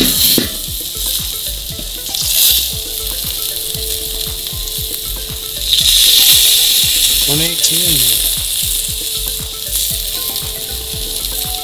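Ribeye steak sizzling on hot grill grates over charcoal in a Weber kettle during the sear: a steady hiss with crackling fat, swelling louder about six seconds in.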